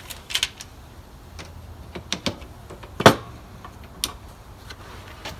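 Clear plastic table-saw blade guard being fitted onto its mount: a few sharp clicks and knocks of plastic and metal parts, the loudest about three seconds in.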